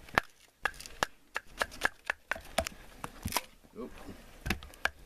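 Knives being batoned through firewood: a wooden baton knocks sharply on the knife spines, driving the blades down through the wood, in irregular strikes several a second.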